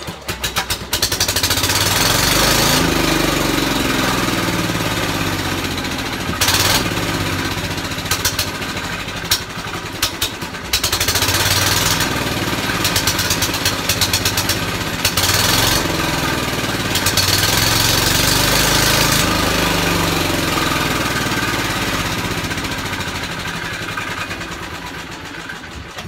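Briggs & Stratton small horizontal-shaft engine pull-started. It catches about a second in and revs up, driving the sawmill's belt and wheels, runs fast and somewhat rough, then slows and winds down toward the end. It is running too fast for the small pulleys fitted.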